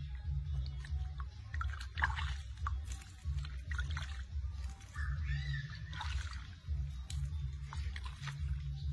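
Water splashing and trickling in a plastic basin as a hand pours it over a baby monkey's head, with a few short high squeaks from the monkey. A low rumble runs underneath.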